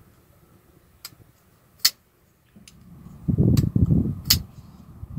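A folding pocket knife worked in the hand: four sharp clicks of the lock bar and blade as the lock is disengaged and the blade moved, the loudest about two seconds in, with low rustling of hands on the knife in the second half.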